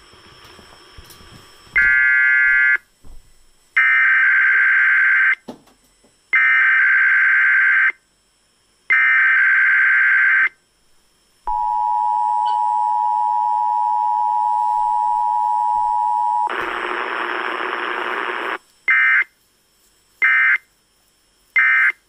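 Emergency Alert System test received on an AM broadcast radio. It opens with a short burst and then three longer bursts of warbling SAME data tones, the message header. Next comes about five seconds of the steady two-tone attention signal, then a two-second rush of noise, and near the end three short data bursts, the end-of-message code.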